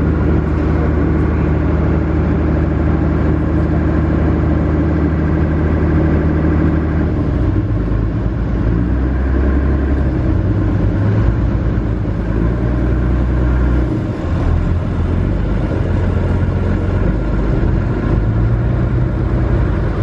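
Small passenger ferry's engine running loud and steady while the boat approaches its landing pontoon; about seven seconds in the engine note changes and turns uneven as the ferry manoeuvres to come alongside and dock.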